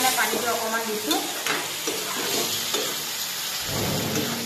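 Vegetable curry sizzling in an iron kadai while a metal spatula stirs it, scraping against the pan in irregular strokes over a steady frying hiss.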